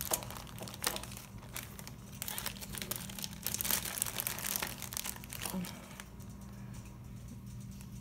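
Plastic zipper-lock bag crinkling and rustling as it is handled and pulled open, a dense crackle that eases off about six seconds in.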